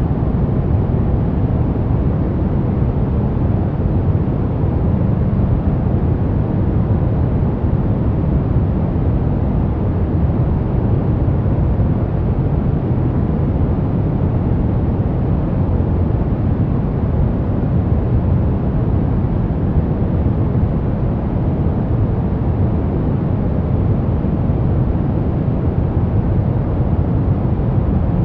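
Steady white noise for baby sleep: an unbroken, even noise weighted toward the low end, deep and rumbling rather than hissy, with no change in level or character.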